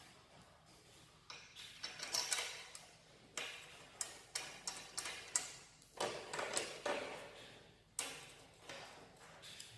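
Metal parts of a manual push tile cutter's cutting head and rail clicking and clacking as they are handled and fitted by hand: an irregular string of sharp clicks, about two a second.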